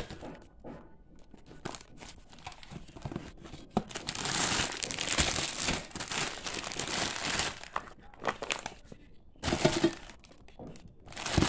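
Hamper packaging being unwrapped by hand. Scattered crackles give way to about four seconds of steady crinkling from about four seconds in, with a few louder crinkles near the end.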